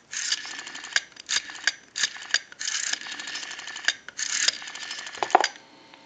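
Western Electric rotary dial from a 302 telephone being dialed, digit after digit: each digit is a wind-up followed by the spring return, heard as a quick train of clicks from the dial's pulsing contacts. The dialing stops a little over five seconds in with a final clunk.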